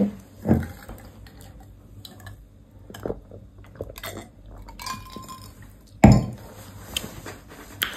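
A person sipping a drink from a stemmed glass, with small glass clinks and handling noises, and a louder knock about six seconds in.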